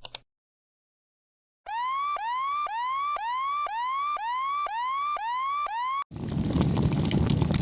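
Siren sound effect: a rising whoop repeated about twice a second, nine times over. About six seconds in, a harsh, noisy rattle takes over.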